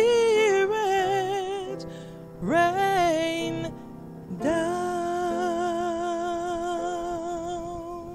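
A woman soloist singing the closing phrases of a hymn with piano accompaniment: a held note, a short phrase about two and a half seconds in, then a long final note with vibrato that fades near the end.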